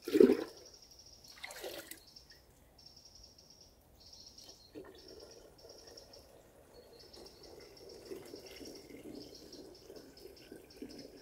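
A sharp knock near the start, then from about five seconds in water pouring and splashing as a plastic jug is filled by hand from a forest spring box. A small songbird sings repeated short high phrases throughout.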